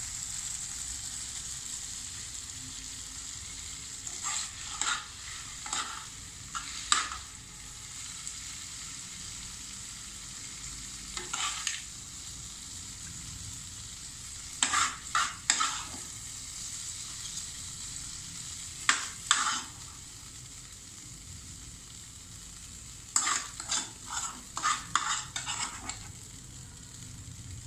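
Stir-fried vegetable noodles sizzling in a hot kadai, with a steady hiss. A utensil scrapes and clinks against the pan in several quick clusters a few seconds apart as the noodles are lifted out onto a plate.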